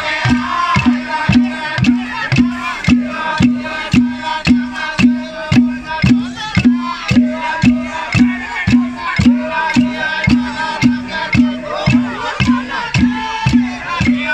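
A group of men chanting in unison over a steady, even drumbeat of about two strikes a second, accompanying a masked leaf-costume dance.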